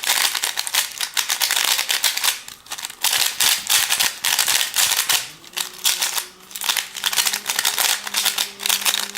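A plastic 3x3 speed cube being turned fast, its layers clicking and rattling in rapid bursts with brief pauses between them.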